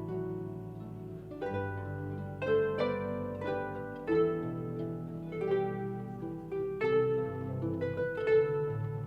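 Harp music: plucked notes ringing over a sustained bass line, with fresh notes struck about every half second to second.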